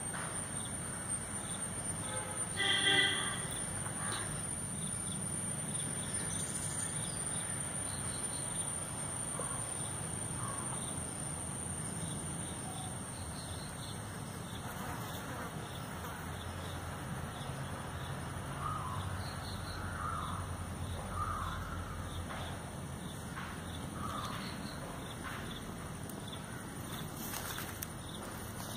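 Crows cawing outdoors: one loud caw about three seconds in, then a string of shorter, fainter calls later on. A thin, steady high-pitched whine runs under them and fades out about halfway.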